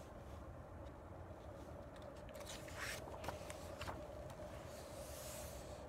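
Pages of a hardcover picture book being turned by hand: a few short paper scrapes and rustles about two and a half to four seconds in, then a soft swish near the end, over a faint steady background rumble.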